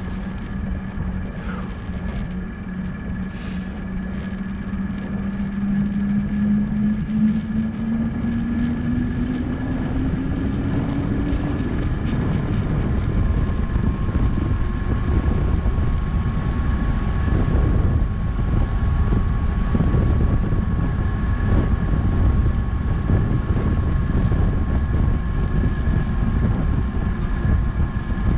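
Wind and tyre-on-road rumble from a bicycle coasting downhill, growing louder over the first several seconds. A low hum rises steadily in pitch over the first dozen seconds, then fades into the rumble.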